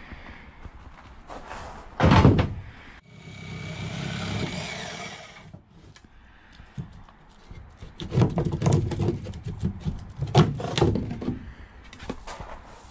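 Thuds, knocks and scraping as a curved cut-out piece of the transom's motor opening is handled and fitted back against the opening: a heavy thud about two seconds in, a rushing scrape lasting a couple of seconds, then a run of knocks and rattles near the end.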